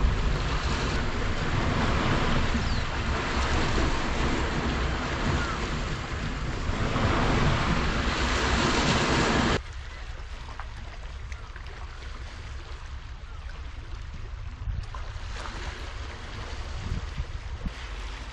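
Wind buffeting the microphone over sea waves washing against a seawall, a loud steady rush with a heavy low rumble. About halfway through it drops suddenly to a quieter, lower wind rumble with waves lapping.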